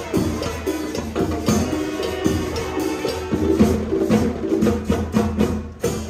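Latin band music with a steady, driving percussion beat under pitched instruments.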